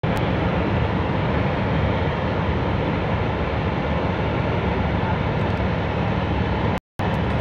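Steady drone of a boat engine with a rushing noise over it; the sound cuts out for a split second near the end.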